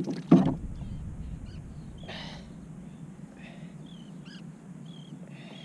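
Two sharp knocks on a fishing kayak as a freshly caught king mackerel is handled and lifted, followed by a few breathy puffs and short, faint high chirps.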